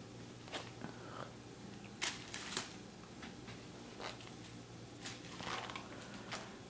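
Kittens scrambling about on a tile floor and over a denim-covered leg: scattered short scratches and taps of small claws, several close together about two seconds in, over a faint steady hum.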